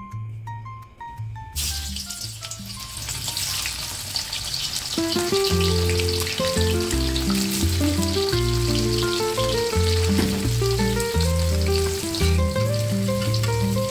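Pieces of smoked stingray sizzling and crackling in hot oil in a wok. The frying starts suddenly about a second and a half in, over background music.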